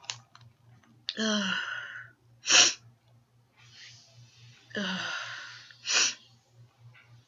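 A woman sneezing twice, set off by sniffed pepper: each sneeze starts with a drawn-out voiced 'ah' gasp that falls in pitch, then a sharp, loud expulsion, about two and a half seconds in and again about six seconds in.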